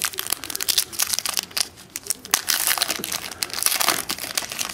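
Foil trading-card pack wrappers crinkling and crackling in the hands as packs are handled and crumpled, in dense irregular bursts that are thickest in the middle and again near the end.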